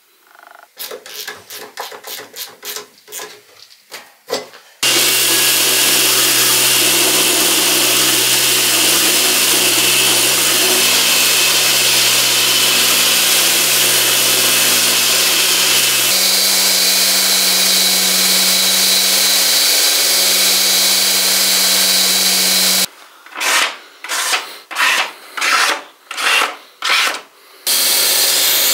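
Homemade steel belt grinder running with its abrasive belt working a piece: a quick series of short grinding strokes, then long steady grinding over the motor's constant hum, which shifts in pitch partway through, then short strokes again near the end.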